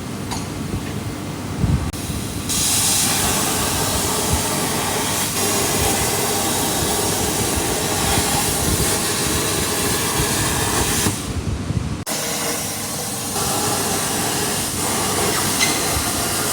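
CNC cutting machine at work with a steady, loud hiss. The hiss rises about two and a half seconds in, breaks off briefly around eleven seconds in, then starts again.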